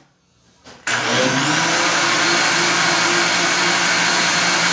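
Countertop electric blender switched on about a second in, then running steadily at one speed as it mixes a batter of eggs, water, oil, cornstarch and freshly added wheat flour.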